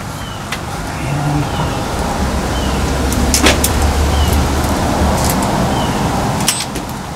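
Low rumble of a road vehicle's engine that swells for a few seconds and then fades, with a few sharp clicks.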